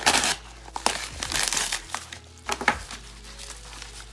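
Kraft paper padded mailer crinkling and rustling as it is pulled open and handled, in irregular bursts, loudest at the start and again about a second and a half in.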